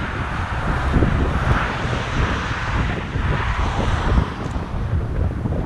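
Wind buffeting the microphone in uneven gusts, a low rumble with a broad hiss behind it.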